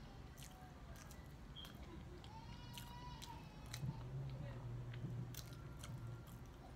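Close-up mouth sounds of someone eating: chewing and biting, with scattered wet clicks and smacks. A low hum is the loudest sound from about four seconds in, and a single drawn-out high call is heard in the background about two and a half seconds in.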